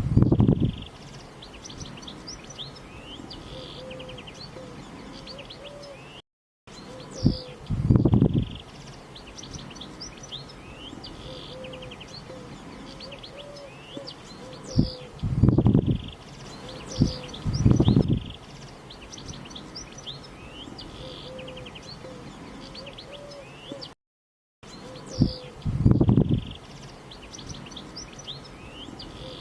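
Small birds chirping and twittering. A wavering low tone runs underneath. Several times a pair of short, loud, low thumps cuts across, and the sound drops out briefly twice.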